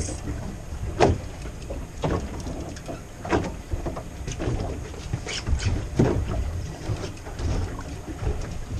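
Irregular low rumble of wind and sea around an open fishing boat, with several sharp knocks and thuds scattered through it.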